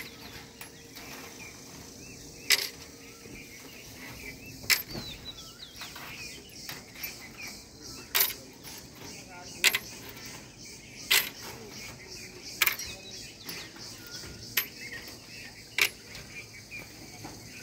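Eight sharp metallic clinks, spaced about one and a half to three seconds apart, from steel reinforcing bars being worked on a rebar mesh. Birds chirp faintly between them.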